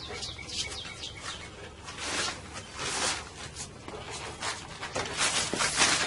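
Rubber inner molding being pressed and worked around the edge of auto glass: rubbing sounds with many short, high, falling squeaks.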